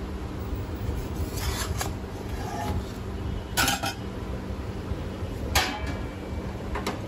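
Metal kitchen utensils clinking against metal cookware in short clusters about every two seconds, over a steady low rumble and a constant hum.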